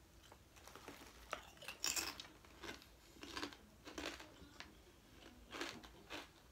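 Good Health avocado oil potato chips crunching as they are chewed, in a run of sharp, irregular crunches, with the chip bag crinkling as a hand reaches into it. The loudest crackle comes about two seconds in.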